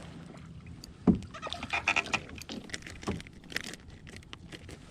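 Scattered knocks and splashes around a fishing kayak: a solid thump about a second in, a quick run of sharp clicks and splashes around two seconds, and another thump near the three-second mark.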